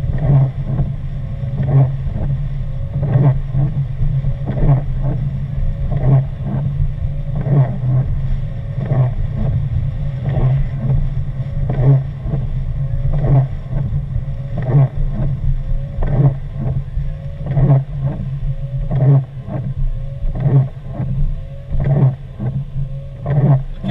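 Inside a car: steady engine and road rumble, with the windshield wipers sweeping the wet glass about every second and a half.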